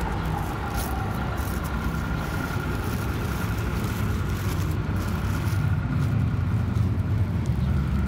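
Street traffic running, a steady low rumble with a faint steady whine, growing a little louder about halfway through. Paper and foil wrapping rustle faintly as a sandwich is unwrapped.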